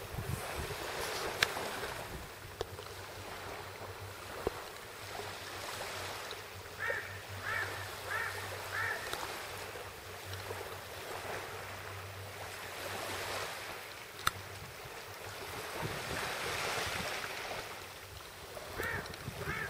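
Small waves lapping gently on a sandy shore, with wind on the microphone and a low steady hum under it. A quick series of four high chirps sounds about seven seconds in, and two more near the end.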